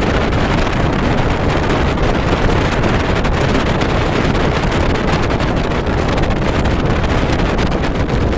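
Steady wind buffeting the microphone, a loud, even rumble with no let-up.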